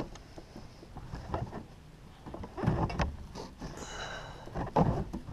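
Handling noises on a plastic kayak deck as a bungee cord is stretched and hooked down over a rubbery non-slip mat on the hatch lid: scattered knocks and rustles, with a short high squeak about four seconds in.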